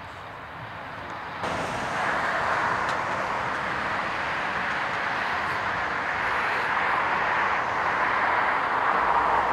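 Rushing noise of a nearby passing vehicle, stepping up suddenly about a second and a half in and swelling steadily louder toward the end.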